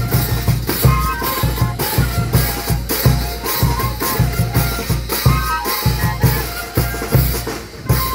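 Andean folk band playing: quenas carry a melody of short, repeated and stepping notes in unison over a steady bass drum beat, with snare or timbales and cymbals.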